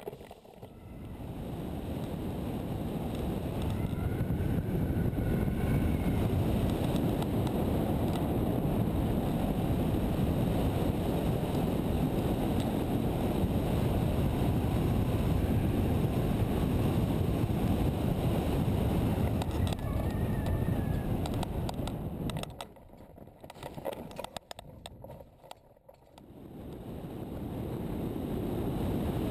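Wind rushing over a hang glider's camera microphone in flight, a dense low rumble. It builds up over the first few seconds, falls away for a few seconds a little past the twenty-second mark, then builds again.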